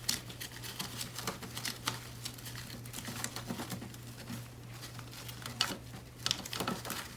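A grapevine garland with leaves and a strand of lights rustling and crackling in many small irregular clicks as it is handled and wrapped around hooks.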